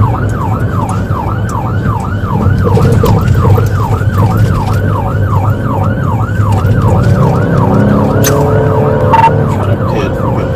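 Police patrol car's siren on a fast yelp, its pitch rising and falling about three times a second, over the steady low rumble of the car driving.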